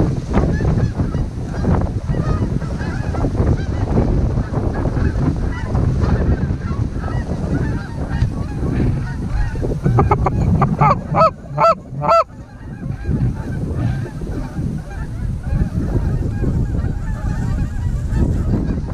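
A flock of Canada geese honking overhead, many calls overlapping, with a louder, closer run of about five honks around the middle. Wind buffets the microphone underneath.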